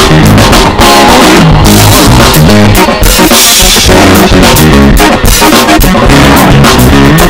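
Loud background rock music with a drum kit and guitar keeping a steady beat.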